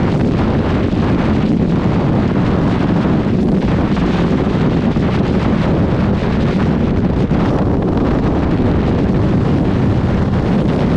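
Heavy wind buffeting on the microphone over the steady drone of a first-generation Suzuki GSX1300R Hayabusa's inline-four engine cruising at motorway speed.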